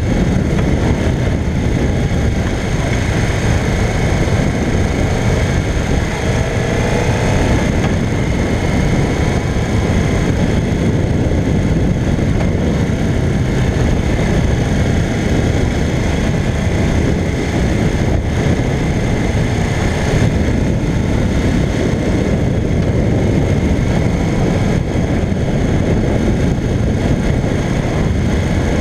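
A 1985 Honda CBX 750P's inline-four engine running at road speed while riding, mixed with a steady, loud rush of wind and road noise on the bike-mounted camera.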